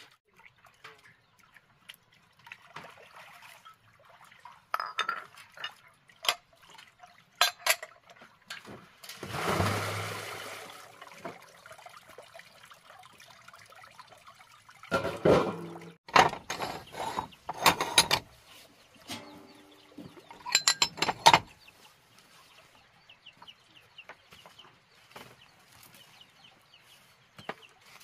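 Chickens clucking, with a few loud squawks in the middle of the stretch, among scattered clinks, knocks and splashes of water.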